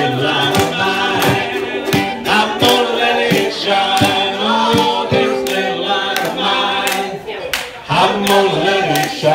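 Group of voices singing together, with hand clapping on a steady beat, about three claps every two seconds.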